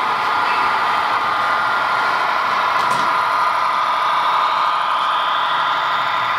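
HO scale model freight train rolling past close by: a steady whir of the locomotive motors with the rattle and clatter of the cars' wheels on the track.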